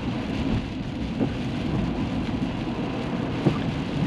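Steady rain falling, with a constant low rumble underneath and a few faint ticks of drops.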